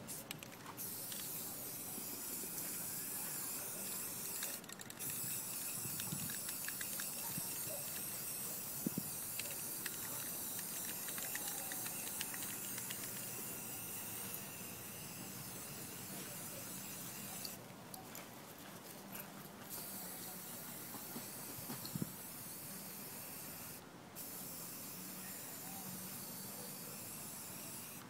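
Aerosol spray-paint can hissing in long steady bursts as paint is sprayed onto a board. The spray breaks off briefly about five seconds in, stutters in several quick taps around eighteen to twenty seconds, and stops once more about twenty-four seconds in.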